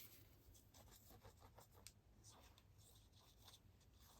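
Near silence with faint rustles, light taps and soft scraping of paper and cardstock being handled and positioned.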